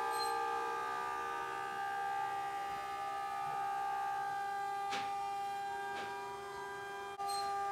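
CNC milling spindle whining steadily as its cutter machines the rim of a red rotomoulded plastic drum, a high whine of several held tones with faint sliding pitches. Two sharp ticks come about five and six seconds in, and the level dips briefly just after seven seconds.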